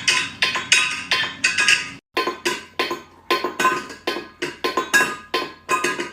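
Percussive music made of quick, sharp clinking strikes that ring at a few fixed pitches, several a second, with a brief silent break about two seconds in.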